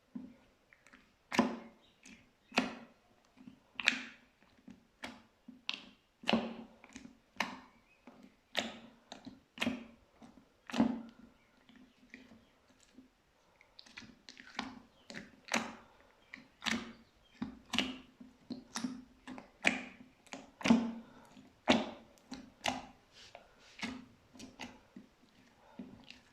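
Slime being pressed and squeezed by hand, giving a string of sharp sticky pops and squelches at about one to two a second.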